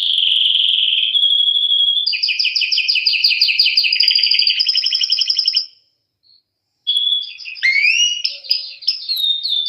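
Canary singing: a long trill, then a fast run of rapidly repeated notes. The song stops for about a second just past the middle, then resumes with varied phrases that include a rising slide.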